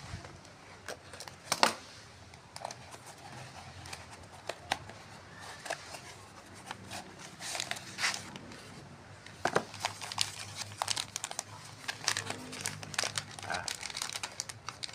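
A small cardboard parcel being unpacked: a utility knife slitting the packing tape, then crinkling and rustling of plastic wrapping and foam packing sheet as they are pulled out and handled. The sound is a run of irregular crackles and scrapes, with a sharp crack about a second and a half in.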